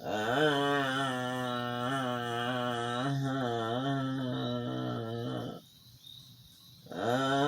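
A sleeping person's long, droning moan, held for about five seconds with a slightly wavering pitch. It breaks off, and after a pause about a breath long the next moan starts near the end.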